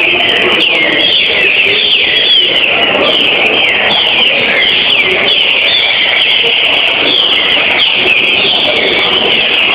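Green-winged saltators (trinca-ferro) singing loudly: several caged birds at once, with overlapping whistled phrases that fall in pitch, packed close together without a break.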